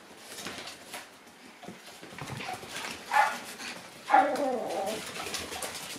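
Shiba Inu puppies playing and tugging a rope toy: a short puppy yip about three seconds in, then a louder, longer yelping whine just after four seconds, with light scuffling between.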